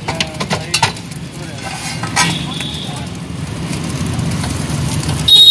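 Metal spatula scraping and clinking against a steel frying pan as gravy manchurian is scooped out, over a steady low hum of street traffic. A brief loud, high-pitched beep comes in near the end.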